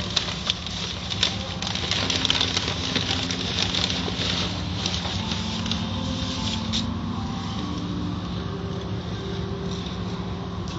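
Automatic tunnel car wash heard from inside the car: water and foam spray over the glass while soft cloth strips slap and rub across the windshield, with many quick slaps for about the first seven seconds that then thin out. Under it all the wash machinery keeps up a steady hum.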